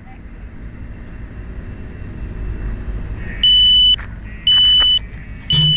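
An electronic beeper sounds a high-pitched beep three times, about once a second, starting about three and a half seconds in. Under it runs a low rumble that grows louder.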